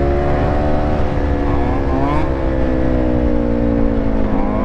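Dirt bike engine running at a steady low speed, its pitch sagging slowly and picking up again, with wind rumbling on the helmet-camera microphone. Two short rising revs come over it, about two seconds in and near the end.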